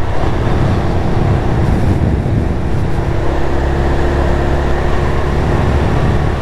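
TVS Raider 125's single-cylinder engine running steadily at an even cruise of about 55 km/h, under a steady rush of wind and road noise.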